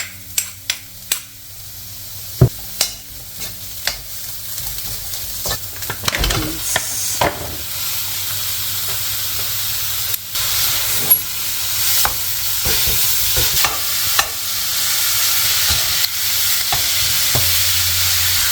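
Mince frying in a pan with onion, ginger and garlic and being stirred with a utensil. Sharp taps and scrapes come in the first few seconds, and the sizzle grows louder and steadier from about six seconds in.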